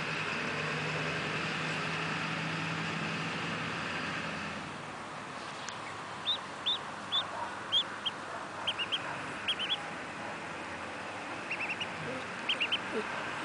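Mallard duckling peeping: short, high-pitched peeps in ones, twos and threes, starting about six seconds in and repeating to near the end.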